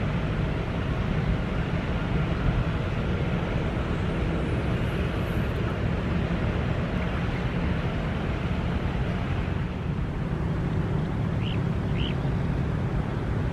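Steady low rumble of wind on the microphone by a river, with two short high chirps near the end.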